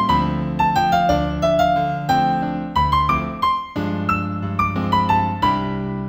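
A gentle new-age piano piece in C major: a melody of single notes, a few a second, over sustained chords.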